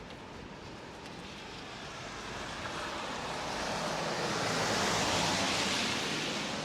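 A vehicle passing on the street: tyre noise swells over a few seconds, is loudest about five seconds in, then fades away.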